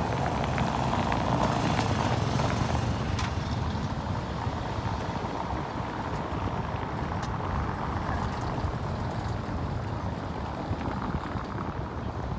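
City street traffic: a steady rumble of passing cars, louder for the first three seconds or so.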